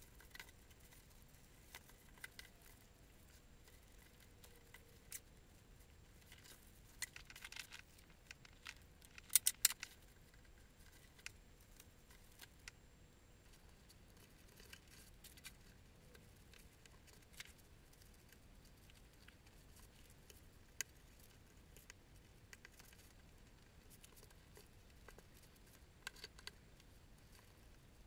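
Rolled and twisted paper strips being handled on a wooden desk: faint scattered rustles and taps, with a louder patch of paper crinkling about seven to ten seconds in and a brief one again near the end.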